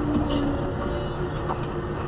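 Yamaman Yukarigaoka Line rubber-tyred guideway train running as it pulls out of a station, heard from inside the driver's cab: a steady low rumble with a humming tone from the drive.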